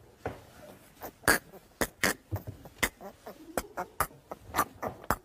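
Wet licking and lip-smacking mouth clicks in a quick, irregular run of a dozen or so sharp smacks, like a cat licking with its tongue flicking out.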